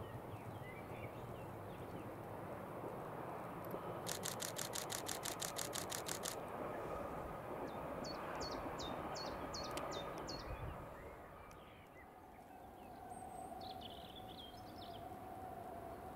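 Passenger train running past on a curved track, a steady rumble that fades about eleven seconds in. A rapid run of clicks about four seconds in lasts two seconds, and birds chirp briefly later on.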